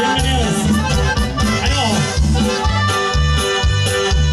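Live norteño band playing: accordion and saxophone over guitar and electric bass, with a steady bouncing beat of bass notes alternating with off-beat chords.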